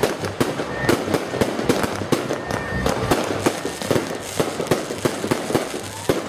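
Fireworks display: aerial shells bursting and crackling in a dense, irregular run of sharp pops and bangs, several a second.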